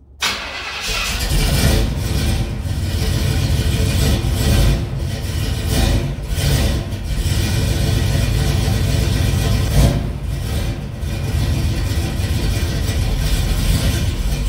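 A classic Pontiac Firebird's engine starting, catching suddenly, then running with several blips of the throttle.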